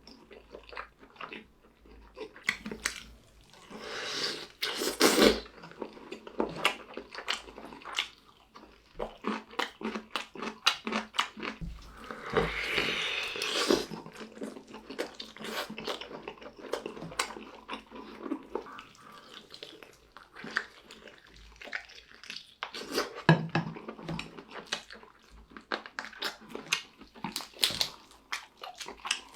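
Close-miked eating of chicken: biting and chewing with many wet smacks and crackling clicks in an irregular rhythm, with a few louder bites.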